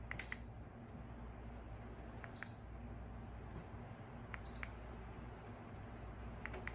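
Electronic control-panel beeps from a Dreo portable space heater: three short, high beeps about two seconds apart, each right after a button click, with another click near the end. A steady low hum runs underneath.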